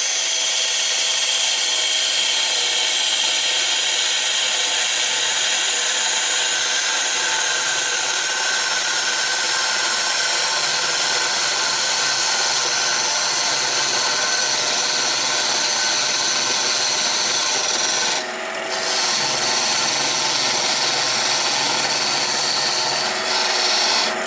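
Wood lathe running while a hand-held turning tool cuts into the spinning wood: a steady scraping hiss over the lathe's whine. The cut breaks off briefly about 18 seconds in, then resumes.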